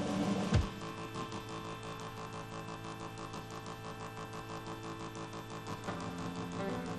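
Live rock band in a long droning instrumental passage: a sustained chord of several held notes with a fast, even pulse running through it, and one heavy drum hit about half a second in.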